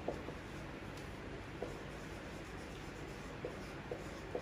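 Faint sounds of writing by hand: a few short, soft ticks spread irregularly over a steady low hiss.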